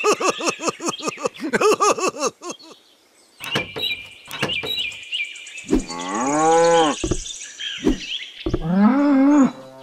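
Cattle mooing: a run of short, quick calls in the first few seconds, then two long moos, about six and nine seconds in. Light plastic clicks around four seconds in, as the lid of a toy cage trailer is handled.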